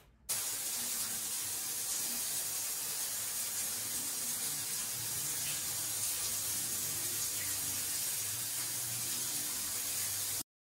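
Steady hiss of running shower water, starting suddenly just after the start and cutting off suddenly near the end.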